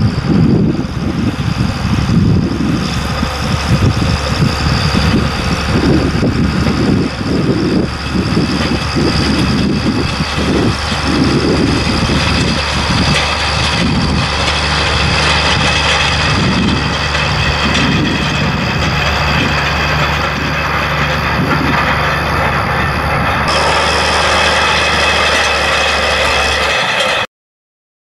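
International Harvester 956 XL tractor's six-cylinder diesel running steadily while pulling a field roller, with wind buffeting the microphone during the first half. The sound cuts off abruptly near the end.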